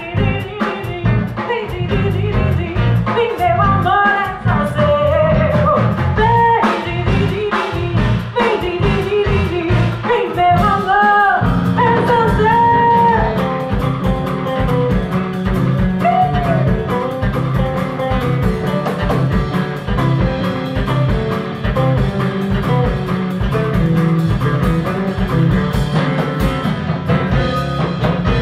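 Live band music: a woman sings over bass, guitar and drum kit for roughly the first twelve seconds, then the band carries on with a heavier bass line and no clear voice.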